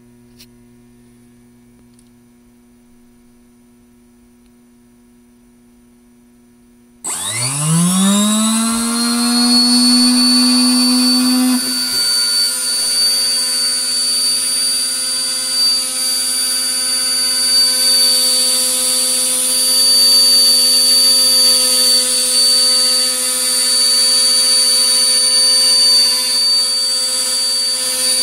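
Low electrical hum, then about seven seconds in a high-speed electric spindle motor starts up: its whine climbs quickly in pitch over a few seconds and then runs steady and loud at speed.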